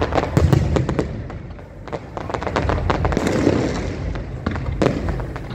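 Aerial fireworks display: rapid volleys of shell bursts and bangs over a steady low rumble, with a dense stretch of crackling about three seconds in and a single loud bang near the end.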